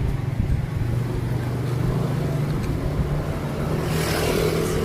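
Road traffic: a vehicle engine running steadily, with a brief rush of noise about four seconds in.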